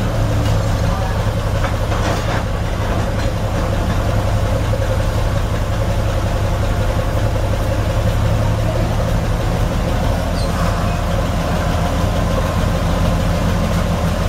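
Diesel locomotive engine idling steadily, a deep even rumble with a continuous low hum.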